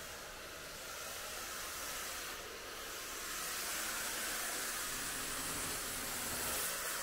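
Steady, even hiss with no distinct pitch or rhythm.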